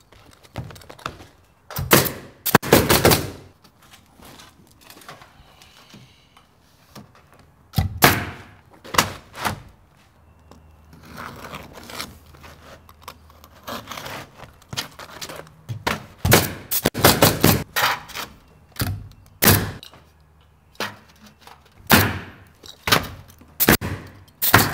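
Pneumatic roofing nailer firing nails through asphalt shingles, in several clusters of quick, sharp shots, with quieter rustling of shingles being set in place between them.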